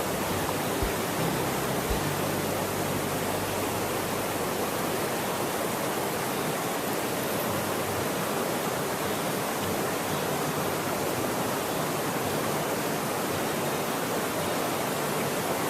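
Steady rush of fast-flowing river water over rapids, an even noise with no let-up.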